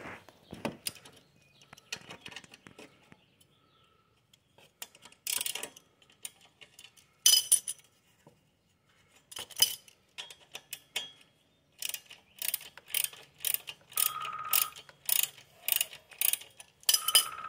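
Socket wrench ratchet clicking in short bursts as 10 mm bolts on a motorcycle's rectifier cover are turned out. A few separate bursts come first, then a quicker run of strokes, about two a second, over the last few seconds.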